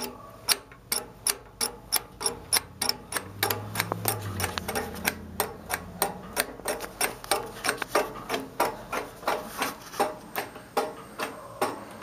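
Steady, rhythmic clicking, about three clicks a second, from a homemade lawn mower gas pedal and its bicycle-cable throttle linkage being worked back and forth. The pedal is not yet bolted down and clicks as it slides.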